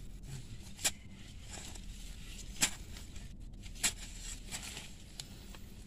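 A long-handled spade digging into soil: three short, sharp strikes over the first four seconds.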